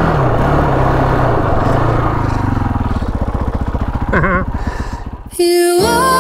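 KTM 525 XC quad's single-cylinder four-stroke engine running under way. Its note drops as the throttle eases, so the separate firing beats come through in the second half. It cuts off a little after five seconds and gentle music starts.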